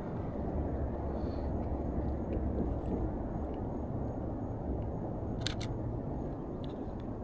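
Canon EOS RP camera shutter firing once, a quick double click about five and a half seconds in, over a steady low outdoor rumble.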